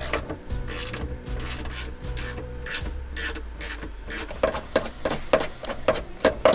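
Hand ratchet with a 13 mm socket clicking in short runs as it backs off the nuts on a BMW E46's rear shock top mount. The clicks come faster and louder from a little past the middle.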